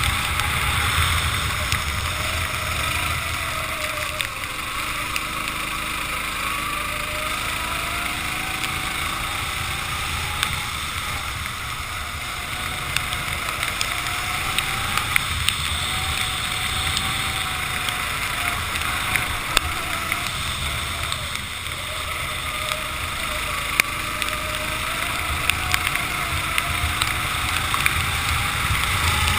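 Racing kart engine running, its pitch rising and falling as the kart speeds up and slows, over wind noise on the microphone and the hiss of tyres on a wet track, with occasional sharp ticks.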